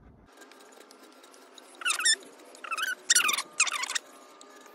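Pocket knife blade scraped along the edge of a pine board to smooth out a spot of lifted grain. It squeals in four short, wavering bursts between about two and four seconds in.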